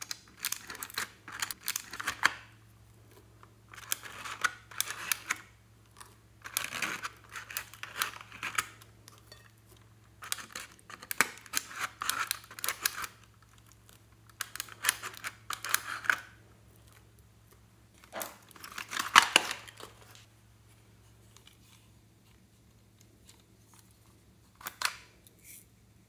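Small plastic spatula scraping pressed glitter eyeshadow out of the wells of a plastic toy makeup palette: scratchy strokes in bursts of a second or two, repeated several times with short pauses, over a faint low hum.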